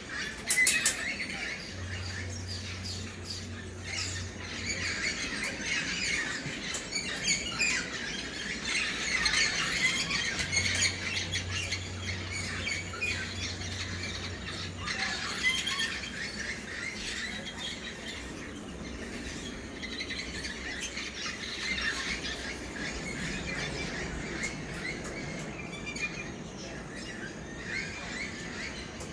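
A dense chorus of many birds calling at once, a busy jumble of short chirps and squawks.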